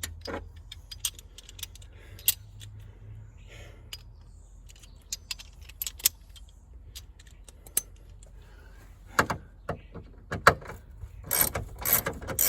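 Scattered metallic clicks and clinks of hand tools, socket and loose bolts being handled, with a short burst of clattering about nine seconds in and a denser run of clatter near the end.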